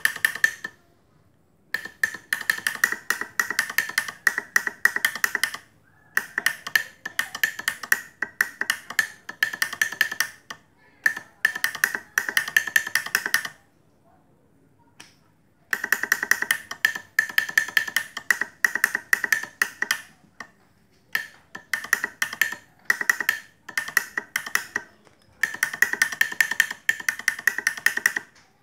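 Three-trumpet MAROO electric horn sounding in repeated blasts of a few seconds each, with short gaps between them. Each blast holds one steady high tone with a fast rattling pulse through it.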